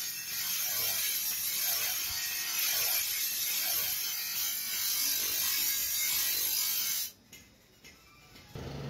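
Bench grinder wheel grinding the edge of a steel hoe blade: a continuous high, hissing rasp that cuts off abruptly about seven seconds in, leaving near quiet.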